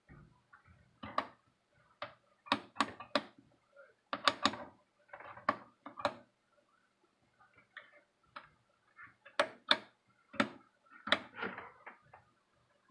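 Rotary function switch on a vintage nixie-tube digital multimeter clicking as it is turned by hand. There are irregular sharp clicks, some in quick runs of two or three, mixed with softer rubbing of the hand on the knob and panel.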